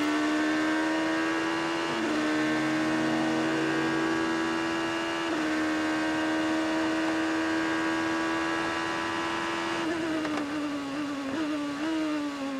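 Onboard sound of the Muscle Milk P1 prototype race car's engine at speed, its pitch held high with small steps at about two and five seconds in. From about ten seconds in the pitch falls and wavers, with short blips near the end.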